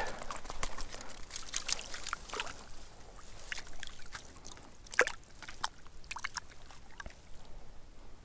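Light, irregular splashes and drips of lake water as a small hooked Arctic grayling is landed, with the sharpest splash about five seconds in.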